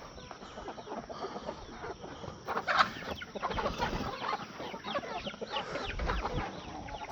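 Chickens clucking: many short, quick calls, thickest in the second half.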